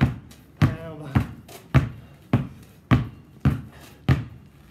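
Two basketballs dribbled hard on a concrete slab, both balls landing together each time: eight sharp bounces in a steady beat, a little under two a second.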